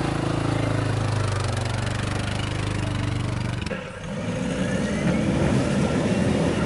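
ATV engine running steadily at idle close by. About three and a half seconds in there is an abrupt change to a vehicle driving on a rough stony track, a rougher, uneven rumble.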